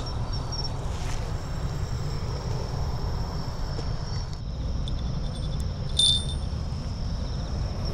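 Wind rumbling on the microphone, with insects trilling steadily at a high pitch and a short high ping about six seconds in.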